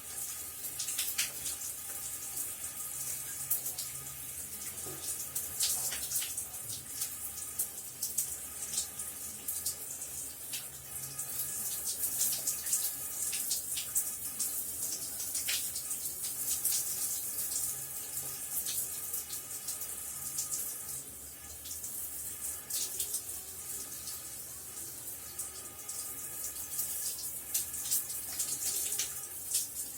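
Shower running steadily: water spraying and splashing, with frequent small splashes over a constant hiss.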